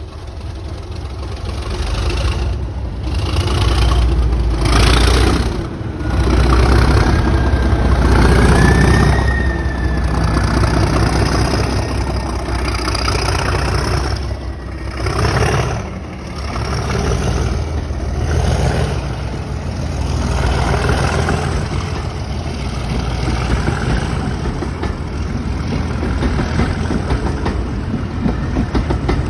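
Train running past on a heritage railway: a heavy low rumble that builds over the first few seconds, with a thin high squeal gliding in pitch partway through.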